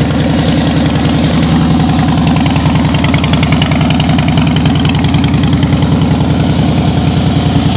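2008 Harley-Davidson Rocker C's fuel-injected 96 cubic inch V-twin idling steadily through Vance & Hines Big Shots exhaust pipes.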